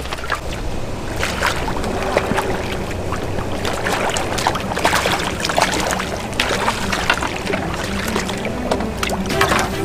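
A hooked tilapia splashing again and again at the water's surface as it is played and netted, in short sharp splashes over a steady low rumble.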